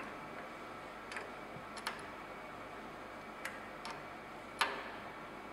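A handful of short, light metallic clicks and clinks, about five spread out with the loudest near the end, as a spanner tightens the tool holder clamp on a centre lathe's tool post.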